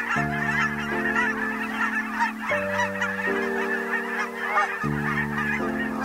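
A large flock of geese honking continuously, many calls overlapping. Soft background music of sustained chords, changing about once a second, runs underneath.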